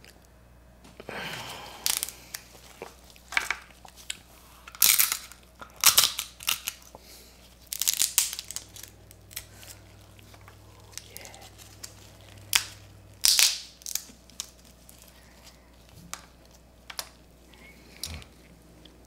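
Stir-fried crab shell being cracked and broken apart by hand as the legs are snapped off, in a series of irregular sharp cracks and crunches, loudest around the middle.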